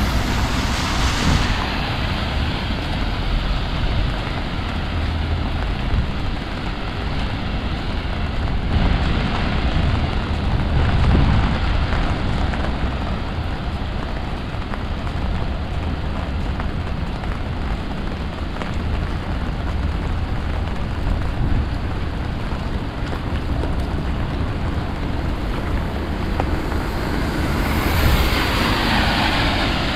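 Heavy rain falling in a strong wind, heard as a steady rushing hiss, with wind buffeting the microphone in a low rumble. The hiss swells louder for a couple of seconds near the end.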